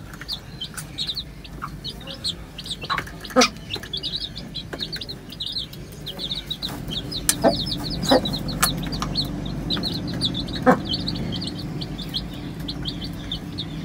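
Newly hatched chicks peeping almost without pause, in quick clusters of short, high, falling notes, with a few sharp taps among them.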